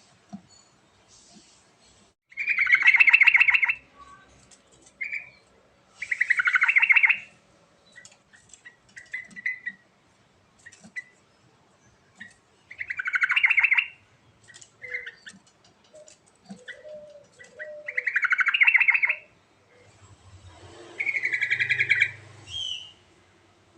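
Yellow-vented bulbul singing: five loud, bubbly warbled phrases, each about a second and a half long, with short chirps and chips between them.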